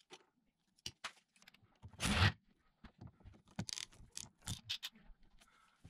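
Plumbing hand tools working on PEX tubing, a PEX pipe cutter and a crimping tool: scattered faint clicks and scrapes, with one louder, brief scrape about two seconds in.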